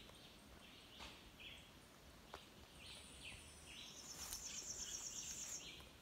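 Faint wildlife chorus: short chirps repeating two or three times a second, joined about four seconds in by a high, rapid pulsing trill that lasts about a second and a half.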